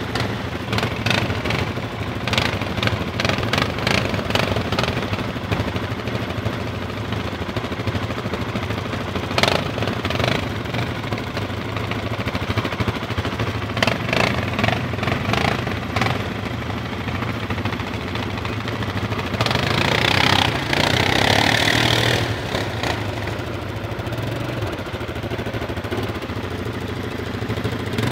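Quad bike (ATV) engine idling steadily, with scattered clicks and a louder rushing, splashing-like burst lasting about three seconds, about twenty seconds in.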